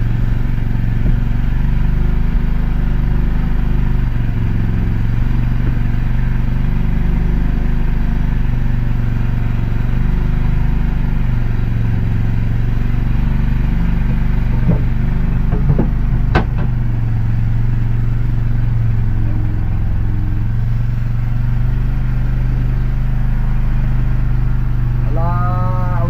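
Engine on a fishing boat running steadily with a low, even hum. A single sharp knock comes about two-thirds of the way through.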